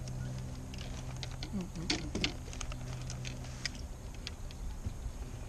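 Irregular small clicks and taps from handling a just-caught crappie and fishing tackle in a boat, over a steady low hum that stops about four seconds in. A short muttered vocal sound comes about two seconds in.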